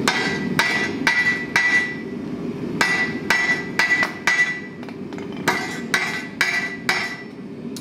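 Hand hammer striking red-hot 3/8-inch square mild steel on an anvil to forge a point: sets of about four blows, roughly two a second, each with a short metallic ring, over a steady low rumble.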